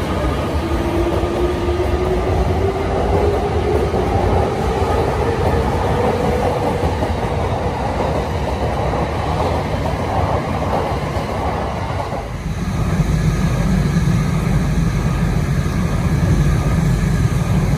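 Tokyo Waterfront Area Rapid Transit 70-000 series electric train pulling out of a station: its motor whine rises slowly in pitch as it picks up speed, over the rumble of the cars running past. About twelve seconds in it gives way abruptly to the steady low hum of a train standing at a platform.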